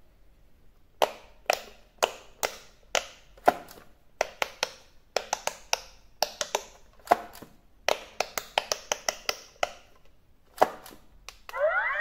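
Electronic quick-push pop-it game, its silicone bubble buttons pressed in a quick, uneven run, each press giving a short sharp pop sound. Near the end the toy plays a brief rising electronic sweep.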